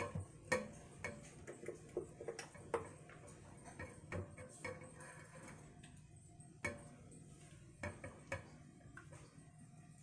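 A spatula stirring melted melt-and-pour goat milk soap in a saucepan, knocking and scraping against the pan in irregular clicks.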